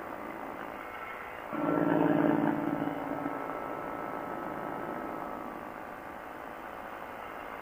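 Quicksilver ultralight's engine and propeller running steadily in cruise, heard from the onboard camera with wind noise. About a second and a half in, a louder droning tone comes in suddenly and fades away over the next few seconds.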